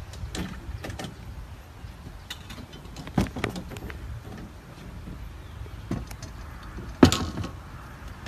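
Wind buffeting the microphone as a low rumble, with a few sharp clicks and knocks over it; the loudest comes about seven seconds in and rings briefly.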